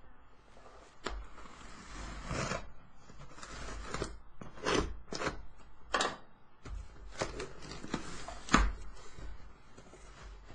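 Cardboard shipping box being handled and torn open: a run of short scraping and ripping sounds from the cardboard and its flaps, with scattered sharp knocks, the loudest one late on.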